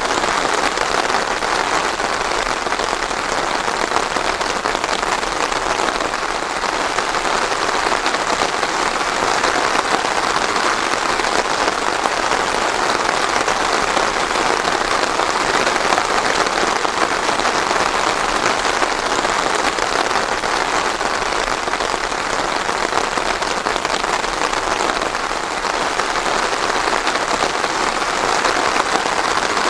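Steady rain falling on a surface, an even patter without thunder.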